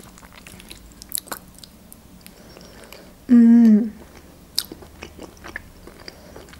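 Close-up chewing of soft, creamy mushroom julienne, with small wet mouth clicks and smacks. About three seconds in comes a short closed-mouth hum, "mm", that dips in pitch as it ends.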